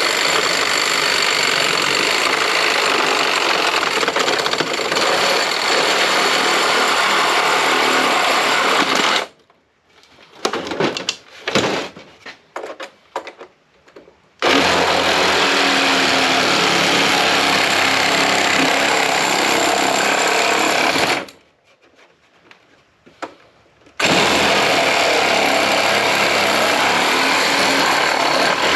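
Power tool running at full speed in long, loud runs on an APC battery backup unit's casing, with two pauses full of scattered clicks and knocks of parts being handled.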